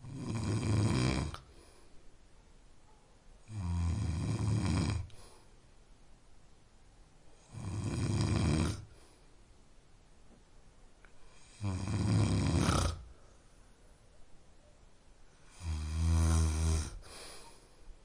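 A sleeping man snoring: five loud, rattling snores about four seconds apart, each lasting a little over a second, with fainter breathing after each.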